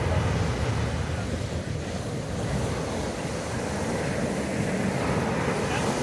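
Ocean surf breaking and washing up a sandy beach, a steady rushing wash that builds again toward the end, with wind rumbling on the microphone.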